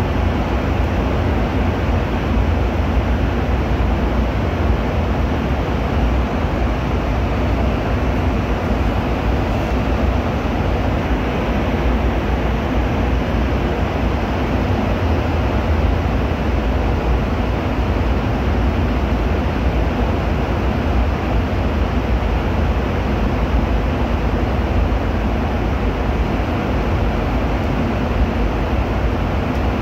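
Steady cabin noise of an airliner in flight: the constant drone of engines and rushing air, heaviest in the low rumble and unchanging throughout.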